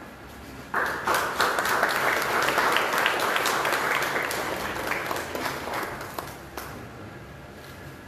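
Audience applauding. The clapping breaks out suddenly just under a second in and dies away over the last couple of seconds.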